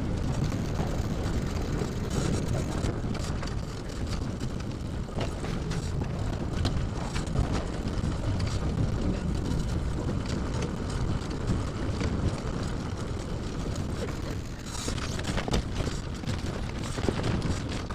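Steady rumble of a wheeled pet trailer rolling over pavement, with wind buffeting the microphone and occasional clicks and rattles from the trailer, more of them near the end.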